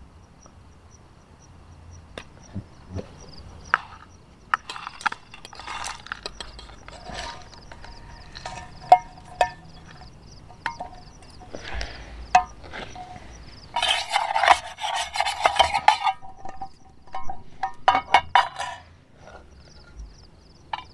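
A metal spoon scraping and clinking in small camping cook pans as food is scooped and moved from pan to pan, with scattered clicks and a longer, louder stretch of scraping about fourteen seconds in.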